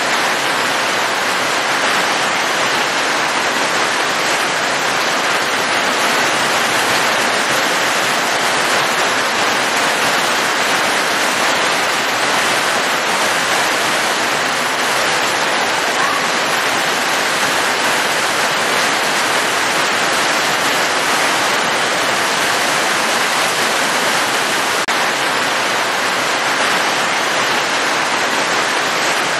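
Heavy, pouring rain: a steady, even hiss without a break.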